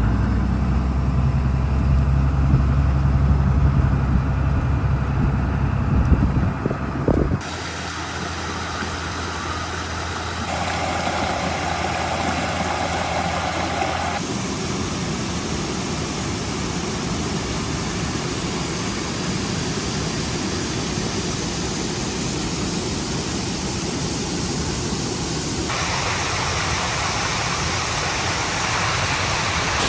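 Vehicle engine and road noise heard from inside a moving truck, cutting off suddenly after about seven seconds. Then comes a run of short clips of steady rushing noise, the last of them the rush of falling water at a waterfall.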